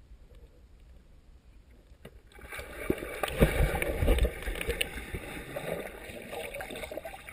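Dog plunging into a swimming pool, heard from underwater: after a quiet, muffled start, about two and a half seconds in comes a dull splash with heavy low thumps, then a churning rush of bubbles as the dog swims.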